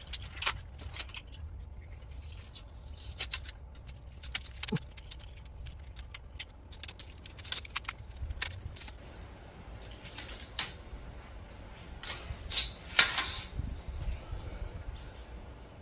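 Scattered light clicks, taps and short rattling or rustling bursts of things being handled, over a steady low rumble.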